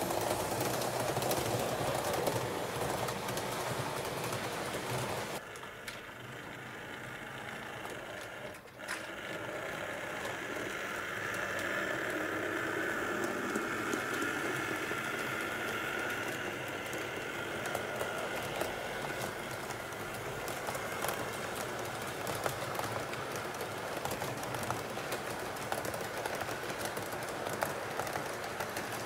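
HO scale model train running on track: a small electric motor whirring and wheels clicking over rail joints. The sound drops suddenly about five seconds in and picks up again, with a faint steady whine partway through.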